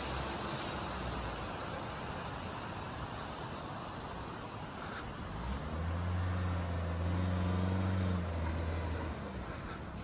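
A car driving: a steady rush of road noise, with a low engine note that swells about five and a half seconds in and fades again about nine seconds in.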